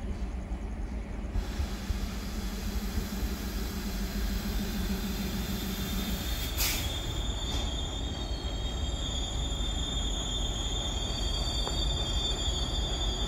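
An Indian Railways WDM3A diesel-electric locomotive hauling a passenger train slowly into a station, its engine giving a steady low rumble. About halfway there is a short hiss, and from then on a high-pitched squeal from the wheels rings out as the train slows to stop.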